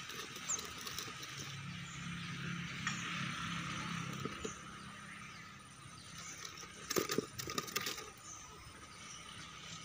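Faint riverside outdoor ambience: a steady hiss with a low hum beneath it, and a short cluster of sharp clicks and rattles about seven seconds in.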